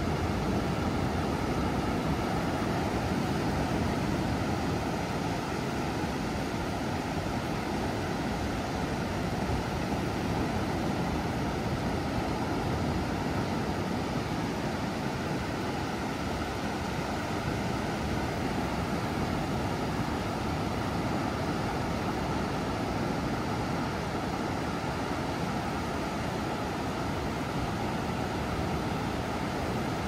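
Ocean surf breaking on a sandy beach: a steady, low rush of waves with no distinct breaks or calls standing out.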